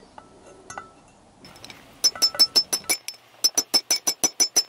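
Rapid light hammer taps on metal, about eight to ten a second with a short pause in the middle, each with a bright ring. They are driving a tapered roller bearing down onto a motorcycle steering stem.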